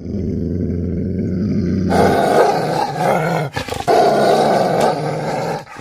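Logo intro sound effect: a low, steady rumbling tone for about two seconds, then a sudden, much louder and harsher noisy blast. The blast breaks off briefly near the middle, resumes, and stops just before the end.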